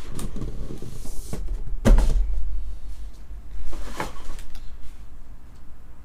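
Hard plastic card case handled on a desk, with a few knocks and clicks. The loudest knock comes about two seconds in and another about four seconds in, with light rustling between.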